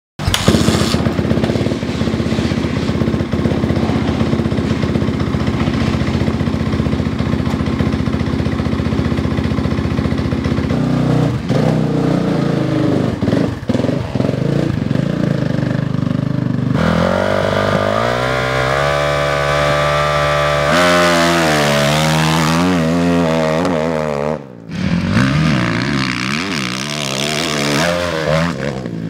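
Motocross bike engine running at a steady pitch, then revving up and down repeatedly as the throttle is worked. About three-quarters of the way through, the sound briefly drops away and then picks up again.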